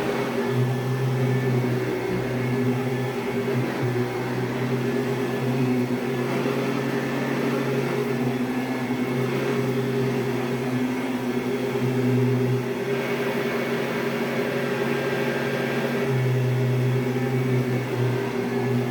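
Eureka Boss 5-amp upright vacuum cleaner with a dual-row VG1 brushroll running on carpet: a steady motor drone that shifts slightly in level a few times.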